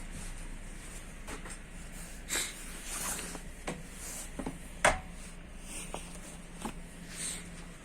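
Inside a Stadler Flirt3 electric multiple unit: a steady low hum from the train, with scattered footsteps, clicks and knocks and a few short airy hisses; a sharp knock about five seconds in is the loudest.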